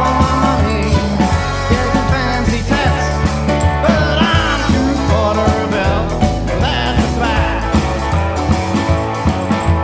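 Background music: a rock and roll band song with a steady beat.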